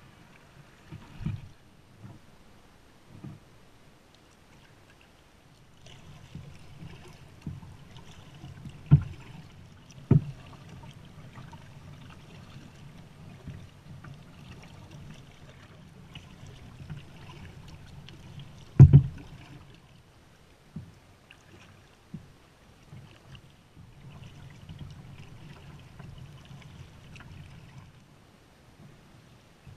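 Kayak paddling on calm water: a low, steady swishing and lapping from the paddle strokes, broken by a few sharp knocks. The loudest knock comes about two-thirds of the way through.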